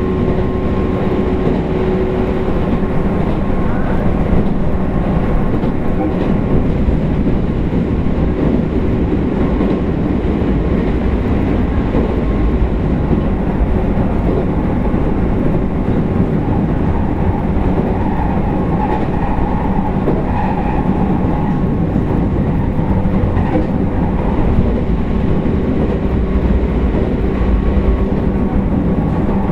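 Abukuma Express 8100 series thyristor phase-controlled AC electric train running steadily: a constant rumble of wheels on rail with faint steady humming tones.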